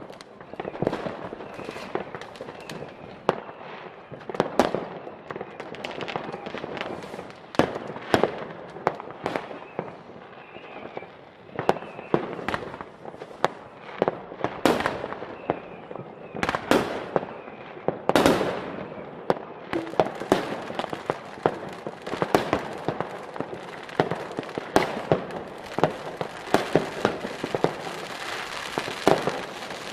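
New Year's Eve fireworks: rockets and firecrackers going off all around in dense, irregular bangs over continuous crackling, with a few louder, longer bursts in the middle.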